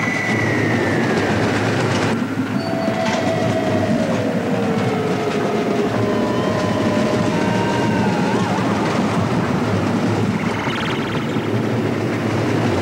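Steady, train-like rumble and clatter of a ride rolling along a track, with several long squealing tones that slide slowly downward.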